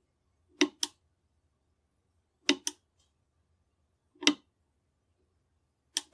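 Cylinder of a Nagant M1895 revolver turned by hand with the loading gate open, clicking as it indexes chamber by chamber: four sharp metallic clicks about two seconds apart, three of them doubled.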